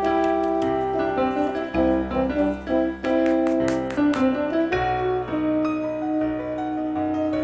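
Background piano music, a melody of notes changing several times a second over sustained bass notes.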